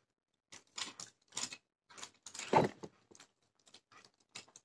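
Plastic clicks and rattles from a small refractor telescope tube being handled and fitted onto a tabletop tripod mount, with a louder knock about two and a half seconds in and lighter ticks after it.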